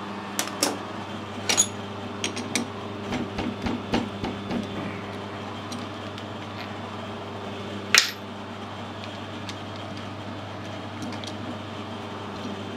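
Metal clinks and knocks of a chuck key working a lathe's three-jaw chuck while a small aluminium bush is handled in the jaws, with one sharp metallic click about eight seconds in. A steady hum runs underneath.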